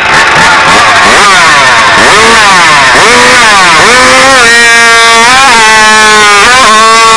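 A class 0-54 racing chainsaw with an expansion pipe, running loud: revved hard in quick up-and-down blips, then held at full revs from about four seconds in as it cuts through the timber beam, its pitch dipping briefly a couple of times under load.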